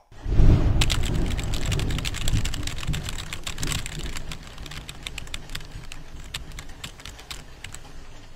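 Typing on a keyboard: quick, irregular key clicks, over a low rumble that is strongest in the first couple of seconds and then fades.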